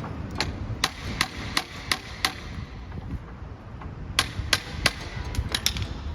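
Hammer strikes, a steady run of six at about three a second, then after a short pause three more blows and a few lighter taps.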